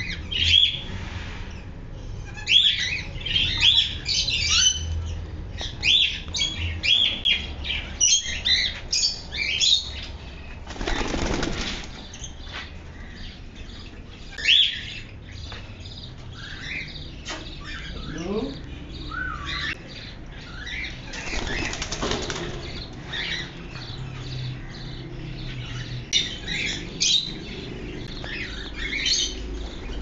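Caged aviary birds chirping: many short, high calls in quick succession, thickest in the first ten seconds and sparser after. There are two brief rustling bursts, about 11 and 21 seconds in.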